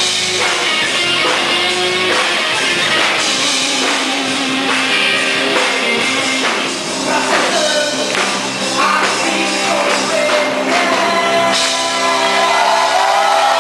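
Live band music: electric guitars over a steady beat, with a voice singing.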